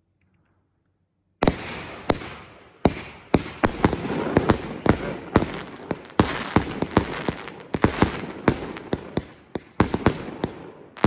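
Consumer firework cake (Master #6) firing: after a second or so of silence, a rapid run of sharp bangs, about two or three a second, with crackling between them.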